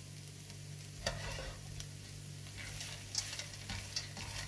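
Food frying in a pan with a faint sizzle, while a utensil stirs and scrapes against the pan a few times, over a steady low hum.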